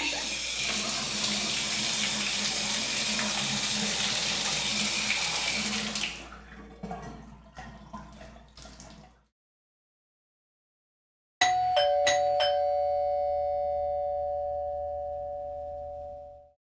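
A shower running with a steady spray of water for about six seconds, then shutting off, with a few seconds of drips and splashes. After a pause, an electric doorbell chime sounds a two-note ding-dong, higher note then lower, with a few clicks at the start, and its notes ring on and fade.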